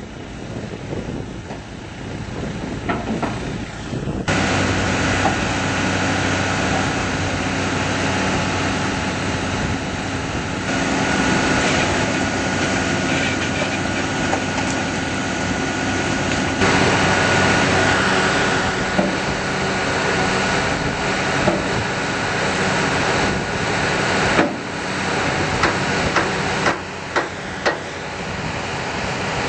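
Deutz turbo diesel engine of a tracked mobile jaw crusher running steadily, getting louder and fuller about four seconds in. A few short sharp knocks come near the end.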